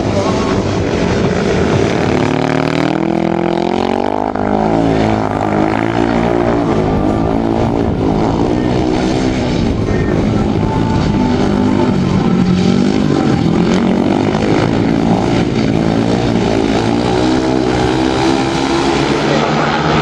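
Speedway motorcycles' 500 cc single-cylinder methanol engines running hard around the track, the revs rising and falling in repeated glides.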